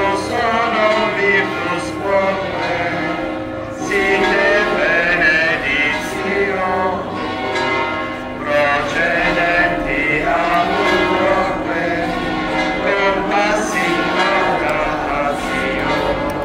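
Voices singing a hymn together, with church bells ringing behind them.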